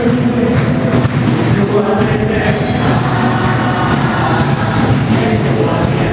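Gospel praise song: a group of voices singing together over a full band, loud and steady throughout.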